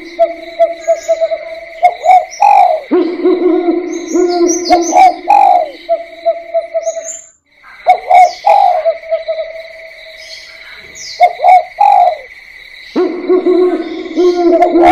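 Spotted doves (tekukur) cooing over and over in low, hooting phrases that fall in pitch, over a steady high ringing tone, with small birds chirping briefly above. The sound drops out briefly a little past halfway.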